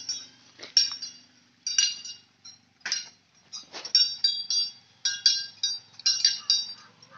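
Small metal bells hanging on a walking captive elephant, jingling in short clusters of clinks about once a second.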